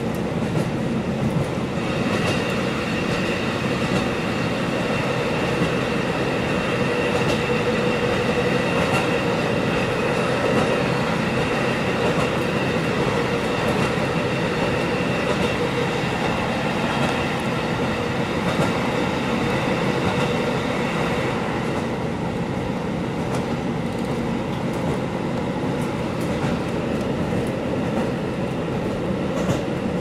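Inside a KiHa 40 diesel railcar under way: a steady rumble of engine and wheels on rail, with light rail-joint clicks. A high whine runs through most of it and fades out about twenty seconds in.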